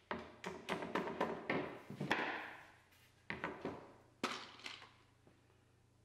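White-headed mallet knocking on a wooden panel on the workbench: a quick run of taps over the first two seconds, then four more spaced-out knocks before about the five-second mark.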